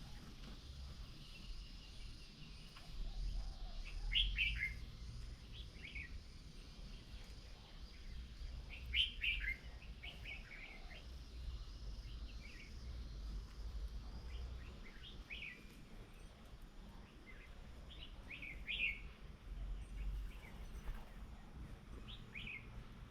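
Small birds chirping in short, scattered calls, a few seconds apart, with a low steady rumble underneath.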